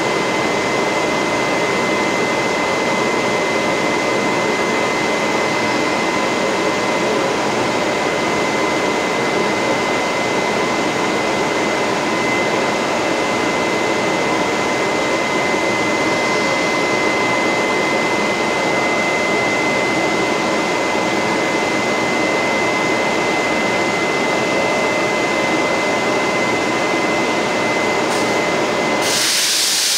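Steady whir of a stationary TRA E200-class electric locomotive's cooling blowers and equipment, with a steady high whine. A short, loud hiss of air comes near the end.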